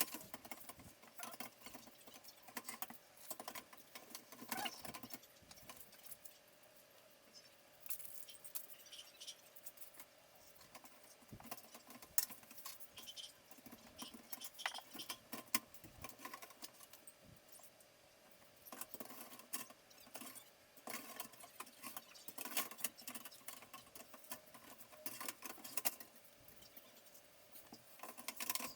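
Irregular light clicks, taps and scratching of small hard parts being handled during a PC case swap, over a faint steady hum.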